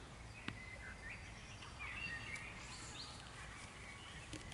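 Park ambience: small birds chirping in short, rising and falling calls over a low steady background rumble, with one sharp click about half a second in.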